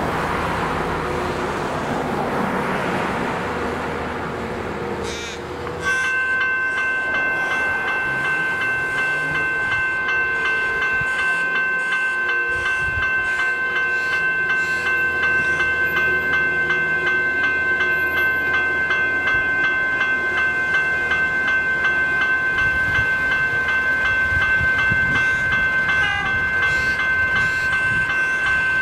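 Level crossing's electronic warning bells, General Signals units, start suddenly about six seconds in and ring on steadily as the crossing activates, after a few seconds of a rushing noise.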